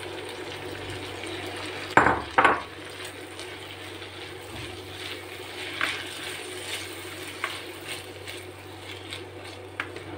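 Chopped tomato emptied from a bowl into a pan of frying capsicum, with two loud knocks about two seconds in. A slotted spoon then stirs and scrapes the vegetables in the hot non-stick pan, with small clicks over a steady sizzle from frying on high heat.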